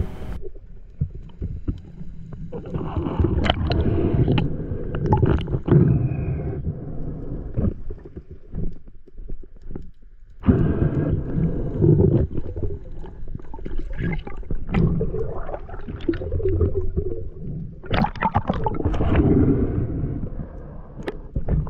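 Underwater sound of a freediver swimming: water rumbling and gurgling against the camera housing in irregular surges, with scattered clicks and knocks, and a brief lull about ten seconds in.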